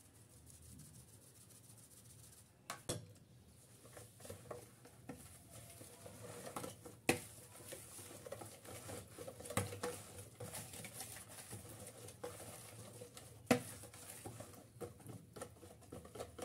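Hand whisk stirring cake batter in a plastic bowl as flour is mixed in, with wet scraping and a few sharp knocks against the bowl. The first few seconds, while flour is sifted in, are quieter.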